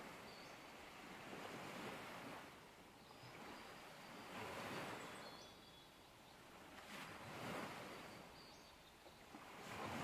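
Faint ocean surf washing in below the trail, swelling and falling back about every three seconds.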